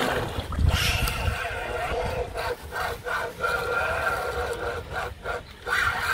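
A large hooked fish thrashing and splashing at the water's surface close to the bank, heaviest in the first second or so, over a steady hum.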